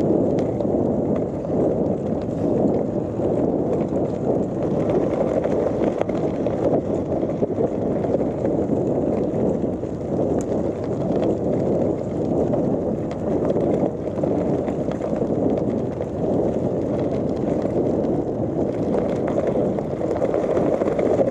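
Gravel bike rolling at speed over a loose gravel track: steady rough tyre noise on the gravel, mixed with wind on the microphone.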